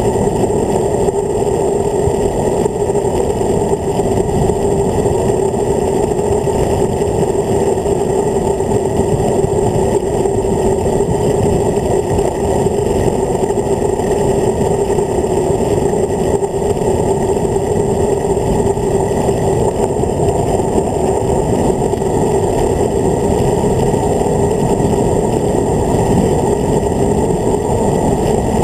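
Steady, muffled rush of wind and road noise on a camera mounted on a road bike's handlebars during a fast descent, with a constant low drone running under it.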